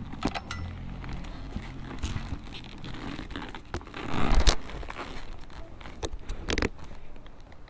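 Handling noise close to the microphone: rustling, scraping and scattered clicks, with one louder scrape about four seconds in.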